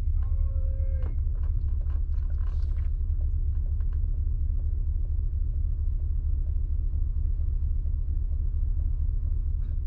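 Heavy truck's diesel engine idling, a steady low pulsing rumble heard from inside the cab.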